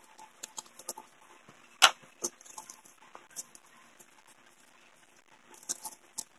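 Scattered small clicks and taps of gloved hands handling J-B Weld epoxy tubes and a cap on a wooden workbench, with one sharper click about two seconds in and a short cluster of taps near the end.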